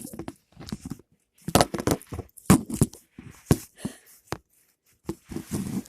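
Irregular handling noises: scattered taps, knocks and rustling scrapes at an uneven pace, with no steady rhythm.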